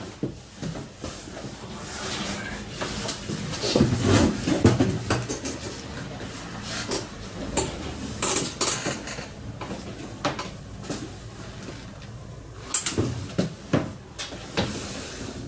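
Irregular knocks, clicks and light metallic clatter from aluminium frame rails and wall panels being handled and fitted, with louder clusters about four, eight and thirteen seconds in.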